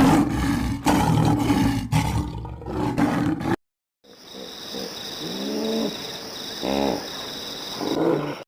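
Wild animal roar sound effects: a loud, rough roar lasting about three and a half seconds, cut off abruptly. After a short silence comes a second animal call with several rising-and-falling pitched cries.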